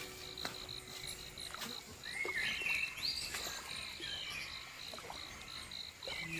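Forest ambience: an insect chirping in a steady high-pitched pulse, about four chirps a second, with a few rising and falling bird whistles around the middle and light clicks of gear being handled.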